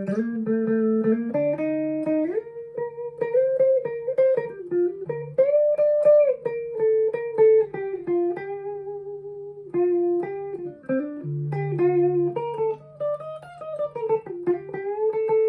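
Harley Benton SC-500 electric guitar played clean through a Fender Mustang LT25 amp with no effects, both pickups on: a picked single-note line with a few bends, ending on a long note that rings out.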